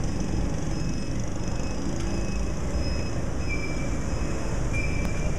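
Street traffic noise: a steady low rumble from motorcycle-tricycle engines, with several short high-pitched chirps scattered through it.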